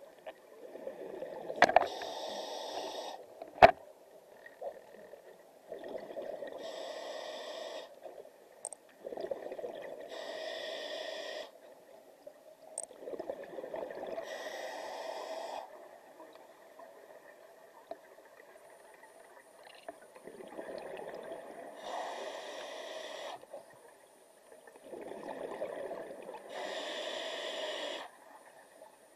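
Scuba diver's breathing through a regulator underwater, heard from the camera: about six long breaths, each a rush of hiss and bubbling, with a longer pause near the middle. Two sharp knocks near the start, the second the loudest sound.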